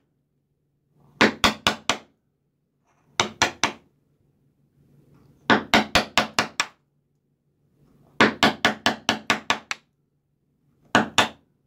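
Wood-carving chisel being driven into the end grain of a wooden block in five quick runs of sharp taps, several a second, splitting off chips while the uneven base is cut down flat toward its centre.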